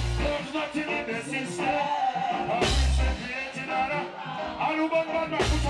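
Live reggae music: a male singer with a backing band, strong bass notes about every three seconds under the sung melody.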